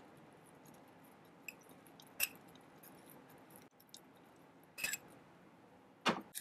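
A metal spoon tapping against a small bowl and a plastic mixer jar while leaves are scooped in: a few short light taps a couple of seconds apart over quiet room tone, the last one, near the end, the loudest.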